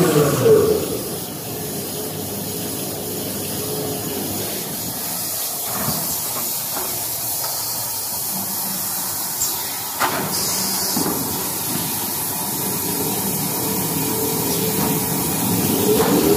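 Toilet paper production machinery running with a steady hiss, broken by a few short knocks about six and ten seconds in.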